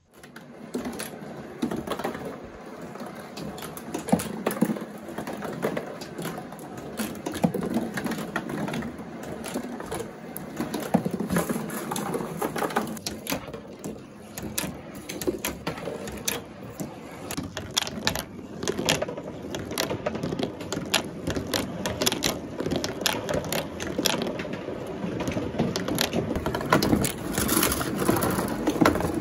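Marbles rolling down a cardboard marble run: a steady rolling rumble along the cardboard tracks with many quick clicks and knocks as they hit the walls and turns.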